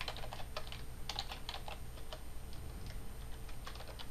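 Typing on a computer keyboard: quick, irregular runs of keystrokes, growing sparser toward the end.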